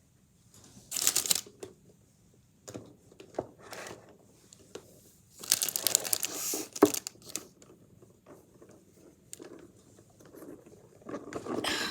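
Packaging crinkling and rustling as it is handled, in two main bursts, about a second in and again around the middle, with scattered small clicks and knocks between them.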